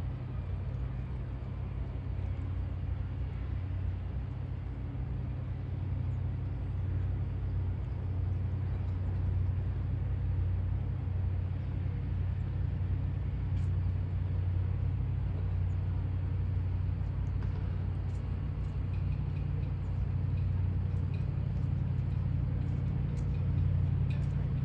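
Steady low engine drone that slowly grows louder, with faint scattered ticks, mostly near the end.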